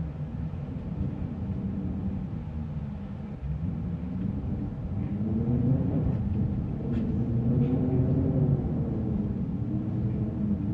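Wind blowing in gusts through an attic, a low moaning whose pitch slides slowly up and down and swells louder about halfway through, with a few faint creaks of wood.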